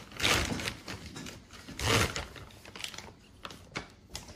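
Two short rustling bursts, at the start and about two seconds in, with small clicks and taps between them: hands handling the plastic kit parts and potting soil.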